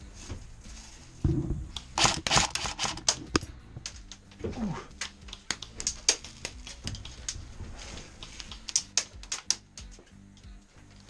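Airsoft BBs striking a wooden fort: a scatter of sharp, irregular clicks and taps, thickest a couple of seconds in and again near the end, with background music underneath.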